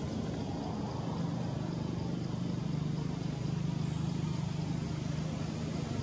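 A steady, low engine drone from an unseen motor, growing a little louder about halfway through and then easing back.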